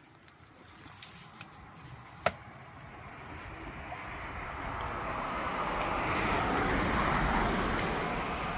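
A vehicle passing on a nearby road: its noise swells over several seconds and then starts to fade, after a few light knocks early on.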